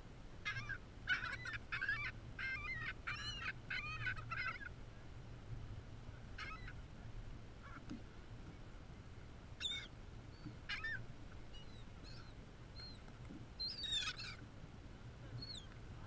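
Laughing gulls calling: a rapid run of nasal calls in the first few seconds, then scattered single calls and short squeals, with a burst of calls near the end.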